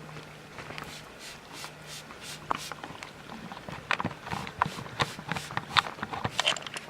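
Irregular knocks and rattles from a wooden package of honey bees and the hive box being handled and tapped, growing busier and louder about four seconds in, over a steady low hum.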